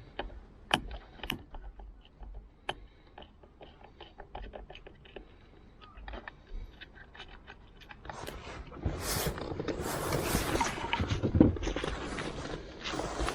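Hands and tools working on plastic steering-column trim and fittings: scattered small clicks and taps, then a few seconds of louder scraping and rustling from about eight seconds in.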